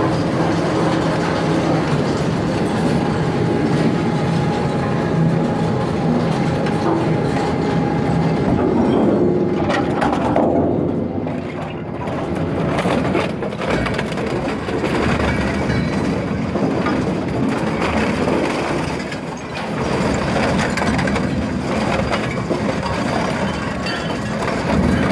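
Twin-shaft industrial shredder chewing scrap metal, cables and electronic waste: a steady low machine hum with repeated cracks and crunches as the material breaks between the cutter shafts.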